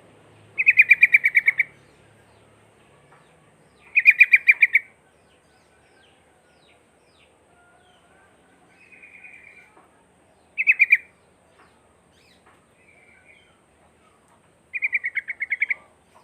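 Sooty-headed bulbul calling in four loud bursts of rapid repeated chattering notes, with a couple of fainter short phrases between them.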